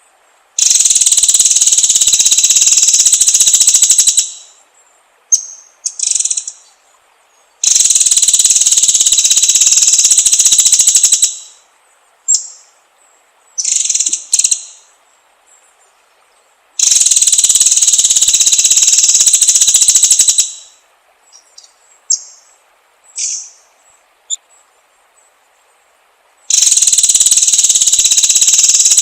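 White-rumped shama (murai batu) song recording: long, loud, rapid buzzing bursts of about three and a half seconds, repeating every nine seconds or so, with short sharp high notes between them.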